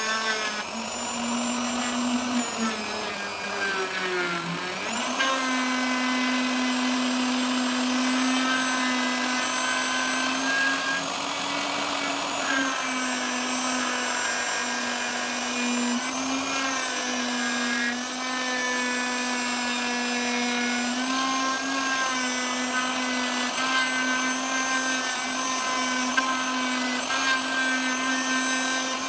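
Wood router running with a steady whine while routing out a pocket in teak, its pitch sagging and recovering about four seconds in and dipping slightly a few more times under load.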